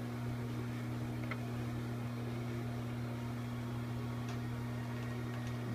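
Steady low electrical hum from bench electronics, with a couple of faint ticks.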